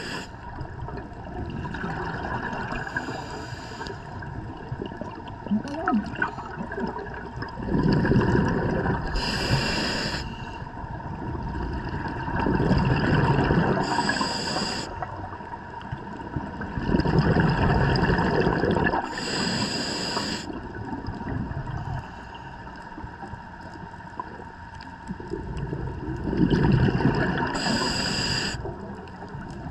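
Scuba diver breathing through a regulator underwater: four breaths, each a low bubbling rush followed by a short high hiss from the regulator.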